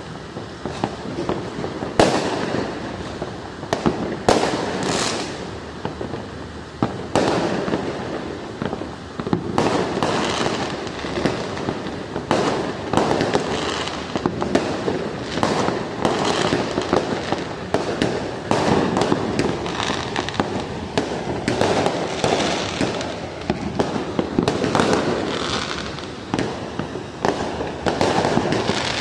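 Many fireworks going off at once across a town: frequent sharp bangs over a steady crackle, with no pause.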